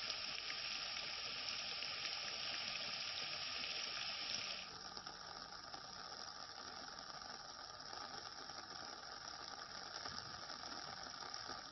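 Steady hiss of rain falling. About a third of the way in it abruptly becomes quieter and duller.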